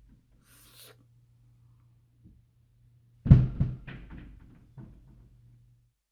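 Heavy thumping from the ceiling above: one loud thud about three seconds in, then a few quicker, fainter knocks that die away, over a faint low hum.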